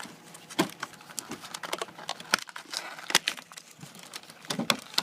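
Headphone packaging being handled and opened: crinkling with irregular sharp clicks and snaps, a few of them louder.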